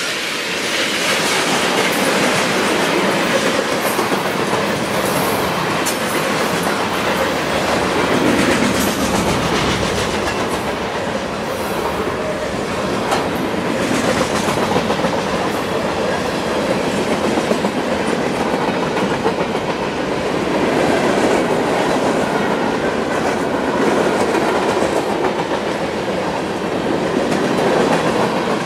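Freight cars of a passing CSX train rolling by: steel wheels clicking over rail joints above a steady rolling noise.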